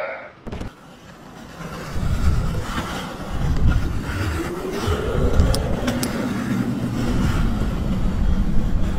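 A low mechanical rumble comes in about two seconds in and keeps going loudly. Over it, a whine rises in pitch for a few seconds, with a few sharp clicks about halfway through.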